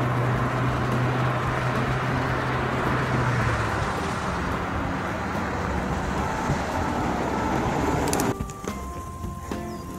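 Road and wind noise from a moving ride, with a motor vehicle's engine hum that fades out after about four seconds. About eight seconds in it cuts abruptly to a quieter passage with music.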